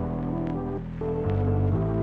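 Warm lo-fi ambient background music: soft held chords that shift every second or so, with light ticking percussion.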